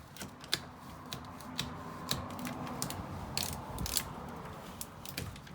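Application tape being peeled off a vinyl sticker on a plastic wheelie bin: a steady crackling rasp with scattered sharp clicks that stops near the end.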